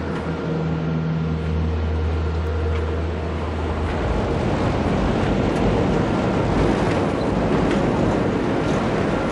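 Sustained low music chords that stop about four seconds in, followed by a steady, loud rushing noise.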